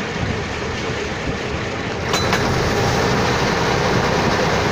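Steady running noise of a ferry boat's engine and the water along its hull. A couple of faint clicks come about two seconds in, after which the noise grows a little louder.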